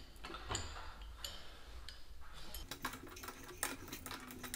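Crescent wrench clicking against a bolt head and the metal barn-door track as the mounting bolts are tightened in short turns. The light metal clicks come sparsely at first, then quickly in the second half.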